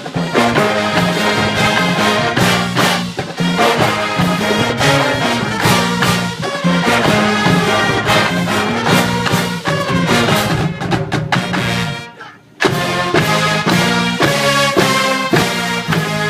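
University marching band's brass section playing a funk medley, loud and rhythmic; about twelve seconds in the music cuts off for a moment, then comes back in with sharp accented hits.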